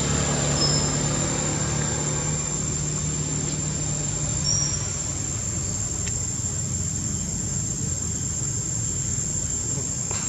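Steady outdoor background noise: a low engine-like rumble that fades about five seconds in, under a constant high, thin insect drone, with two brief high chirps.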